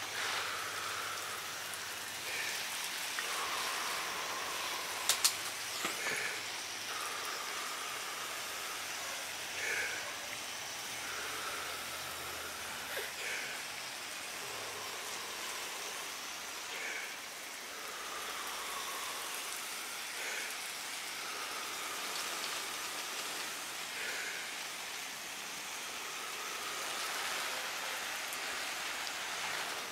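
Garden watering: water spraying steadily onto sugarcane mulch and young vegetable plants, an even hiss, with a couple of light clicks about five seconds in.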